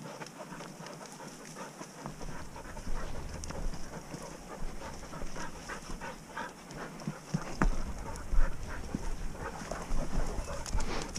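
Footsteps crunching and scuffing over loose stones and brush, with a working springer spaniel panting nearby. Wind buffets the microphone from about two seconds in, more strongly in the second half, and there is one sharper knock near the end.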